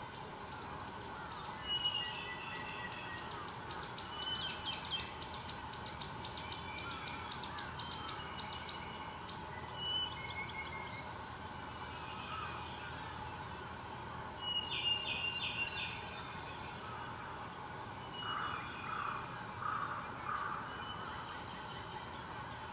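Wild songbirds singing in forest, with one bird giving a long run of rapidly repeated high notes, about four a second for some six seconds, then a short burst of song about two-thirds through and a few lower notes near the end, over a faint steady background hum.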